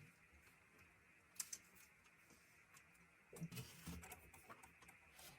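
Near silence: room tone with a few faint clicks, a pair about a second and a half in and a light scatter of small knocks and clicks in the last two seconds.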